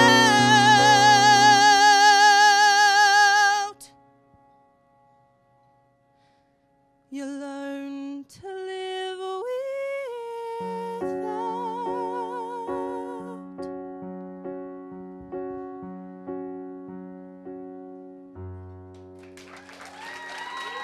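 Female singer with keyboard accompaniment ending a musical-theatre ballad: she holds a long belted note with vibrato that cuts off about 4 s in. After a pause of a few seconds she sings a last short rising phrase over repeated keyboard chords, the keyboard closes on a low note, and applause and cheers rise near the end.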